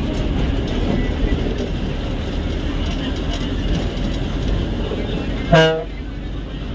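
Ashok Leyland bus's engine and road noise from inside the driver's cab while under way, with one short horn toot near the end as the loudest sound.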